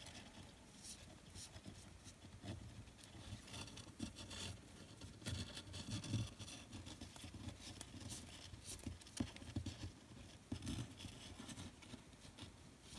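Faint, irregular rustling and scraping of braided Venetian blind cord sliding through a monkey's fist knot as fingers pull each strand tighter, with soft low knocks from the handling.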